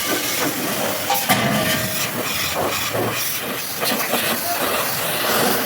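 High-pressure washer jet spraying water onto a mud-caked truck, a steady hiss of spray.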